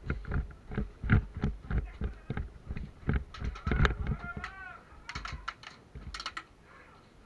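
Quick, irregular run of knocks and clicks, about three or four a second, from an airsoft player on the move with gear, with a short wavering voice-like cry about four seconds in.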